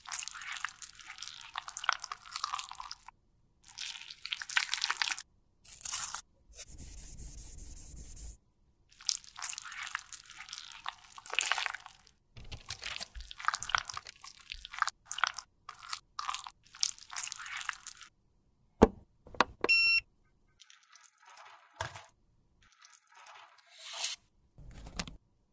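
Close-up crinkling and crackling of a plastic sheet, and a spatula scraping and squishing liquid foundation across it, in a string of separate bursts with short pauses. About three-quarters of the way through there are two sharp clicks and then a brief pitched tone.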